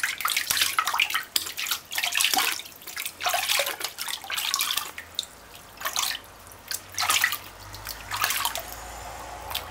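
Hand scooping and splashing water in a plastic bucket over a wet young rabbit being bathed, in irregular splashes and drips that thin out after about five seconds.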